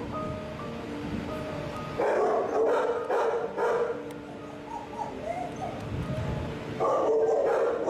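Dogs barking in bouts: a run of barks about two seconds in that lasts a couple of seconds, and another burst near the end.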